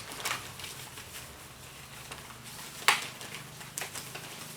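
Faint handling sounds as a cover is secured over a bucket with a rubber band, with a sharp snap about three seconds in, over a low steady hum.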